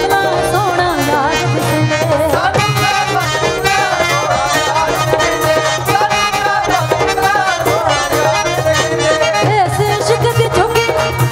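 Live Punjabi Sufi song: two women singing, one voice taking the lead with wavering, ornamented lines and the other joining in, over keyboard accompaniment with steady held notes and a regular percussion beat.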